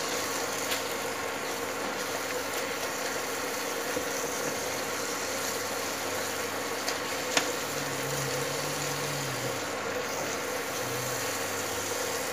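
Onion-tomato masala sizzling steadily as it fries in oil in a nonstick kadai while being stirred with a silicone spatula, with a few light clicks of the spatula against the pan. This is the masala being fried (bhuna) with pav bhaji masala until it releases its oil.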